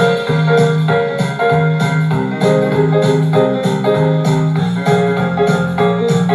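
Instrumental music led by a piano-like keyboard, with a steady beat.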